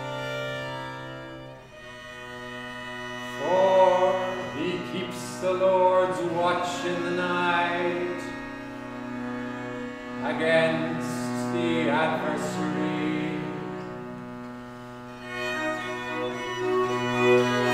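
A cello quartet playing a slow piece: a low note is held throughout while the upper cellos swell in and fall back in long phrases, easing off and then building again near the end.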